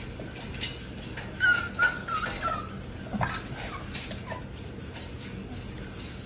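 A puppy whining briefly: a few high, wavering squeaks about a second and a half in, among scattered soft clicks and splutters from a plastic squeeze bottle drizzled over a tray of puppy food.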